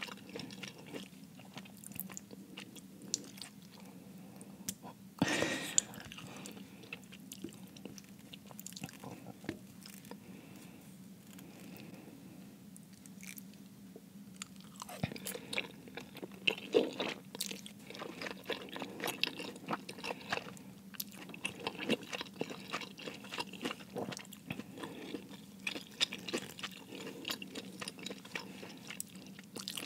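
Close-miked chewing of cheese-filled dumplings in BBQ sauce, with many short wet mouth clicks and smacks. A louder, noisier sound comes about five seconds in.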